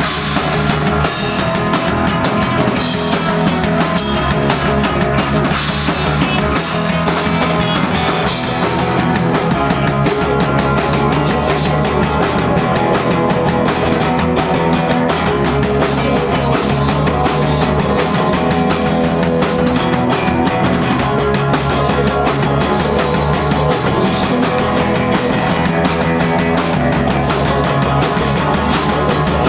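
Punk rock band playing live, with distorted guitars, bass and drum kit. Cymbal crashes land every second or two through the first several seconds, then fast, dense drumming drives on from about nine seconds in.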